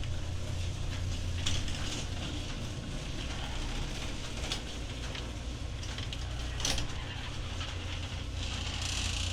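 Garage door opening: the opener's motor runs with a steady low hum, with scattered clicks and rattles from the door mechanism.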